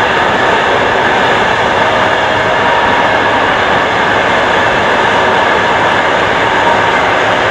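Frecciarossa high-speed electric train passing at speed: a steady, loud rush of wheel and air noise with a faint whine running through it.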